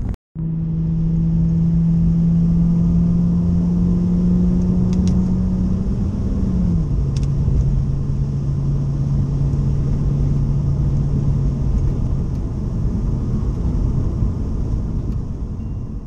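Car engine and road noise heard from inside the cabin while driving: a steady rumble with an engine hum that climbs slowly, then drops to a lower pitch about six and a half seconds in and holds there.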